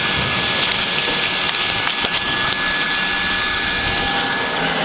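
Vacuum cleaner with its filter removed, sealed in a plastic bag with a second blower drawing on the bag, running steadily as it pumps air out of a large aluminum tank. A thin steady whine rides over the rushing noise and fades near the end.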